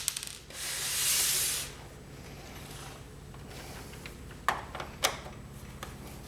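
Screwdriver working a screw out of a plastic printer cover: a few light clicks, a scraping hiss lasting about a second, then two sharp clicks near the end.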